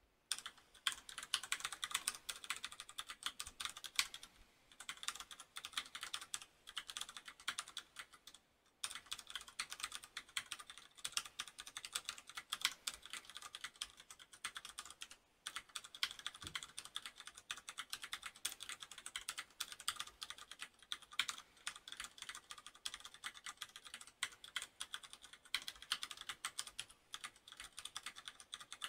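Typing on a FILCO Majestouch BLACK Tenkeyless mechanical keyboard with Cherry MX Brown switches: a rapid, continuous clatter of keystrokes with a few brief pauses, picked up by a headset microphone.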